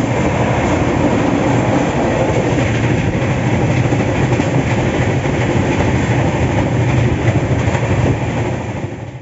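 Passenger train running along the track, heard from on board: a steady loud rumble of wheels on rails with some clickety-clack. The sound fades away near the end.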